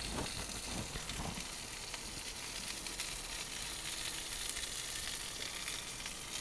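Steady crackling sizzle of a thick New York strip steak searing in a Lodge cast iron pan inside a gas-fired Ooni Koda 16 pizza oven.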